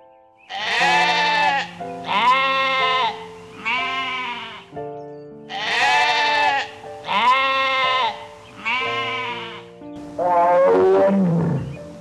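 Goat bleating: six wavering bleats of about a second each, in two runs of three, then a longer call sliding down in pitch near the end, over soft piano music.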